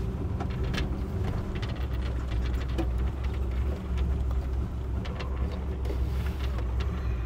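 Land Rover Defender 90's Rover 3.9-litre V8 running steadily, a deep low rumble that grows a little fuller about two seconds in.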